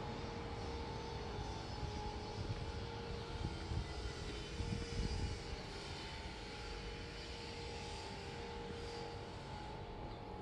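Steady city street ambience heard while walking, with a low rumble and a faint constant hum.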